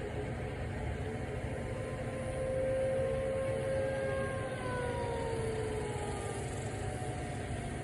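Distant outdoor warning sirens (T-128s and a P-10) sounding during a test. Their wailing tones slide down in pitch about halfway through, over a steady low rumble.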